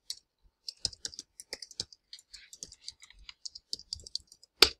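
Computer keyboard being typed on: a quick, irregular run of key clicks, with one louder key stroke near the end.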